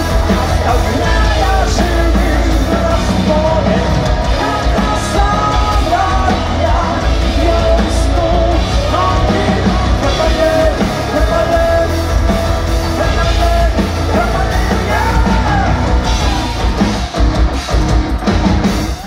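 Live rock band playing at full volume: electric guitars, bass and drums with a lead vocalist singing and shouting over them. The music stops abruptly right at the end.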